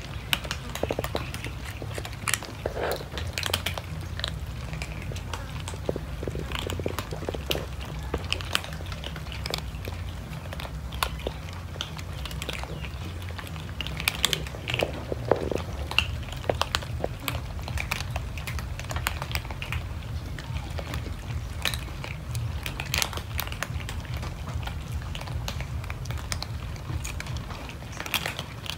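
A crowd of cats crunching dry kibble: many small, irregular crunches and clicks overlapping, over a steady low hum.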